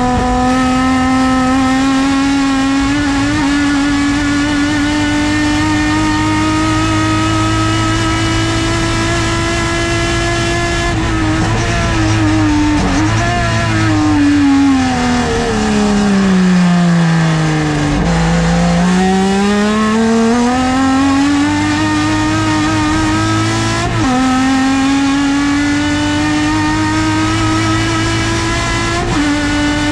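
Onboard sound of a TC Bonaerense Clase A race car's 4-litre six-cylinder engine under racing load. Its pitch climbs steadily for about ten seconds, then falls away for several seconds as the car slows. It then climbs again from low revs, breaking with sudden drops twice in the last part as gears are changed up through the H-pattern box.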